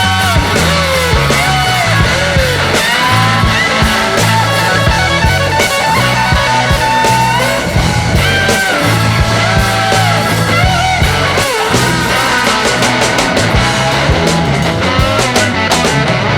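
Background music: a rock-style pop song with electric guitar, a steady beat and a bass line, plus a melodic line that glides in pitch.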